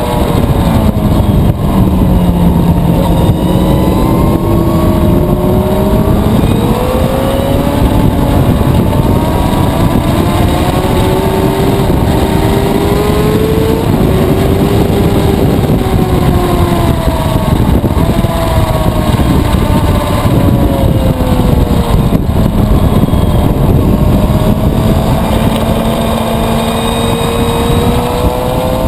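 2011 Suzuki GSX-R 750's inline-four engine at high revs, its pitch climbing and dropping again and again with throttle and gear changes, over a steady rush of wind and road noise.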